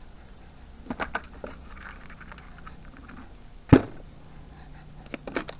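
Clicks and knocks of a 3D-printed socket tray loaded with sockets being handled and set into a toolbox drawer: a few light clicks about a second in, one sharp knock about two-thirds of the way through, and a cluster of light clicks near the end.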